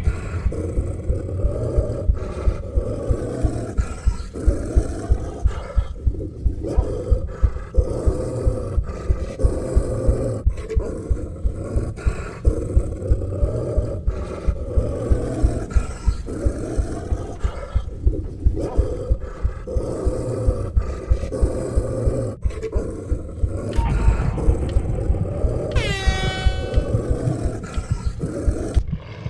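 A person burping at length: a long, deep, croaking belch with a rapid pulsing rattle, broken by a couple of short pauses. Near the end comes a brief high-pitched squeal.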